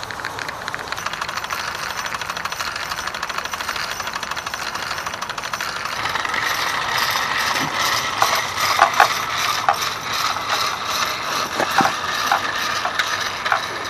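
Wilesco live-steam model showman's engine running: its small steam engine and gearing make a rapid, even mechanical ticking, with sharper, louder clicks and knocks in the second half.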